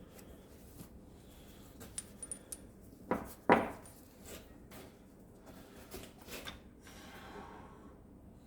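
Metal tools and engine parts being handled during an engine teardown: a few light metallic clinks about two seconds in, then two louder clanks with a short ring about a second later, and a few softer knocks further on.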